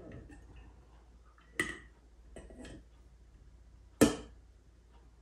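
Utensils (kitchen tongs) knocking against the inside of a large glass jar while a kombucha SCOBY is worked in it. There is a sharp click about a second and a half in, a softer rattle a little later, and the loudest knock about four seconds in.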